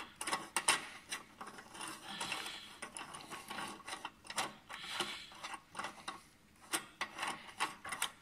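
A 2-inch eyepiece adapter being screwed by hand onto the top of a Sky-Watcher Explorer 150P telescope's focuser: the threads and fingers rub and scrape, with irregular small clicks.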